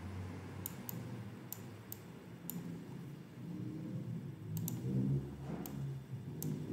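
Sharp single clicks, about nine at an uneven pace, over a faint low-pitched murmur.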